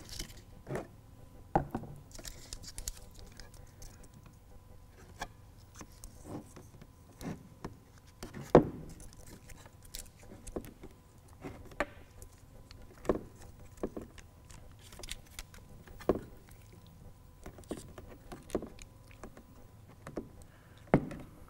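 Hands working a roll of butyl tape sealer and its paper backing into the channel of a plastic tail light housing: scattered, irregular light taps and handling noises, the loudest about eight seconds in.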